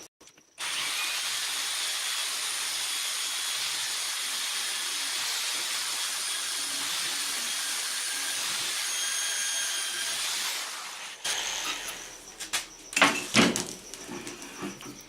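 Electric hand drill running steadily for about ten seconds while boring into hardwood, then stopping, followed by a few knocks of the wood and tool being handled.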